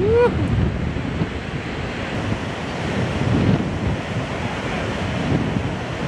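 Wind buffeting the microphone over the steady wash of breaking ocean surf. A single short call that rises and falls in pitch sounds right at the start.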